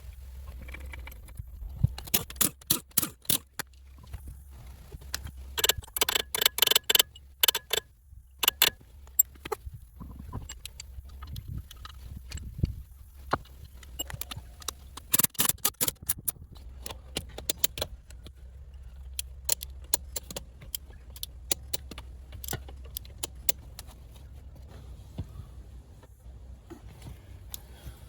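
Irregular bursts of metal clinking and clattering, like hand tools and metal parts knocking together, over a steady low hum.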